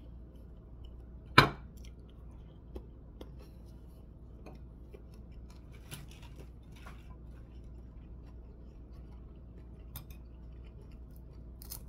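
Scattered light clinks and taps of a plate and dishes while someone eats a meal by hand, with one sharper clink about a second and a half in. A faint steady hum runs underneath.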